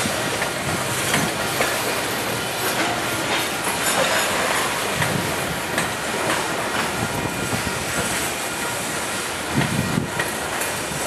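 Union Pacific freight train of boxcars rolling past: a steady rumble of steel wheels on rail with irregular clicks and clanks as the cars pass over the rail joints.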